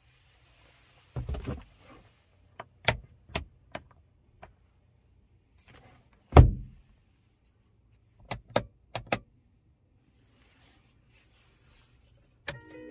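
Hard-plastic clicks and knocks of a Hyundai Kona's interior trim being handled, the sun visor swung and snapped against the headliner. The loudest thump comes about six seconds in, with a few quicker clicks before and after.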